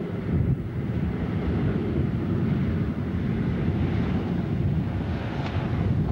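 PT50 hydrofoil running foilborne at speed: a steady low engine rumble with the hiss of its spray, mixed with wind on the microphone.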